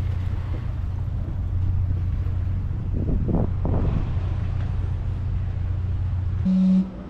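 Wind rumbling steadily on the microphone beside open water. Near the end it cuts abruptly to a steady whistle tone from a steam clock's steam whistle.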